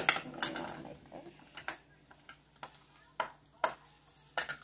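Scattered light clicks and taps of small plastic toys and slime containers being handled on a table, a few sharp ones spaced about a second apart.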